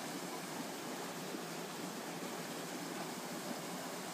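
A small stream running over stones: a steady, even rush of water.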